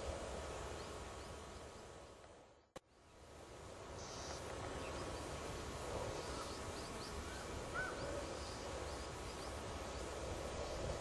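Outdoor marsh ambience: a steady background rumble with faint, high small-bird chirps scattered through it. The sound fades almost to nothing and back, with a single click, a little under three seconds in.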